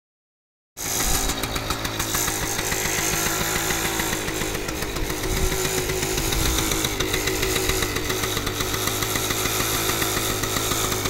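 Kawasaki KV75 mini bike's small two-stroke single-cylinder engine idling steadily with a rapid, even beat, cutting in abruptly just under a second in. The engine starts easily and runs well on its first running after sitting for many years with a blown head gasket.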